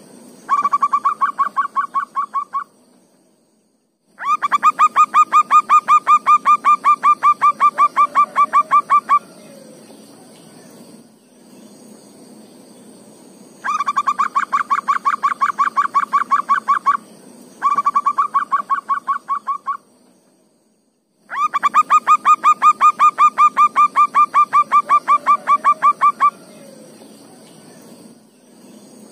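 Zebra dove (perkutut) calling: trains of rapid, evenly spaced notes lasting several seconds each, repeated five times with short pauses between, over a faint steady high whine.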